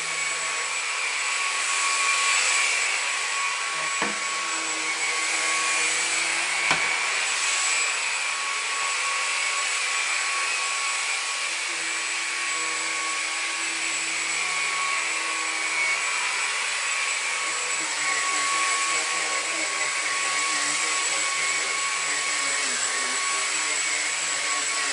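Numatic Henry Quick cordless vacuum cleaner running steadily while it cleans a mattress: a continuous rush of air with a steady high whine. Two short knocks come about four and about seven seconds in.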